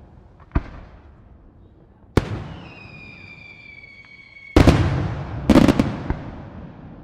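Aerial fireworks shells bursting with sharp bangs that echo and die away. A lighter bang comes about half a second in and a loud one at two seconds, followed by a whistle that falls slowly in pitch for about two seconds. Then comes the loudest bang, with a quick cluster of cracks a second later.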